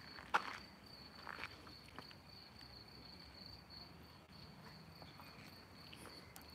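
Crickets trilling, a steady high-pitched chirr, with a few footsteps on a cobbled path in the first two seconds, the loudest about a third of a second in.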